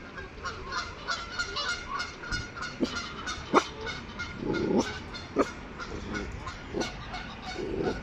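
A flock of waterfowl calling: many short honking calls in quick succession, with a few sharp clicks, the loudest about three and a half seconds in.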